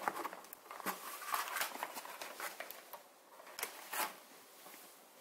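Scattered small clicks and rustles of hands fiddling with an old film camera, trying to open it. The clicks are busiest in the first half and thin out near the end.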